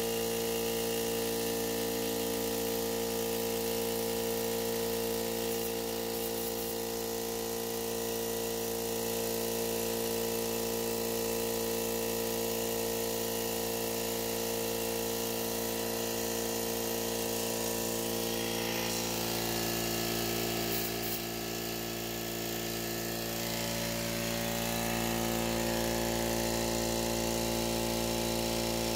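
Central Pneumatic 21-gallon, 2.5 hp air compressor running steadily with an even motor-and-pump hum, building tank pressure. The new reed valves are sealing and the cold start valve is no longer fluttering or leaking. The sound gets a little louder near the end.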